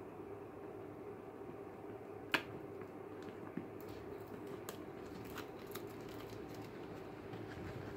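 Hands handling a cardboard product box: one sharp click about two seconds in, then scattered light taps and rustles, over a steady low background hum.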